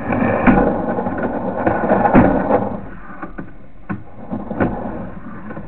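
Sewer inspection camera's push rod being fed down a drain line: irregular rattling and scraping, busiest for the first two and a half seconds, then lighter with scattered clicks.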